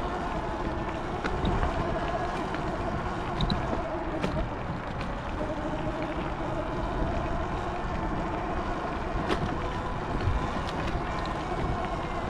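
Electric bike riding along a dirt and gravel trail: a motor whine that wavers in pitch over the rumble of the tyres on the ground and wind on the microphone, with scattered clicks and rattles.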